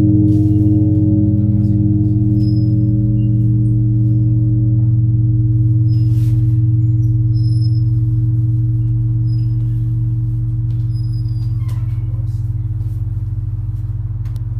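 The long hum of a large bronze bell dying away after a stroke. It is a deep drone with several steady overtones above it, fading slowly.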